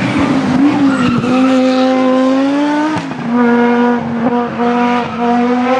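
Audi Quattro rally car's turbocharged five-cylinder engine under hard acceleration. The engine note climbs steadily, drops sharply at a gear change about three seconds in, then pulls again with a couple of brief stutters.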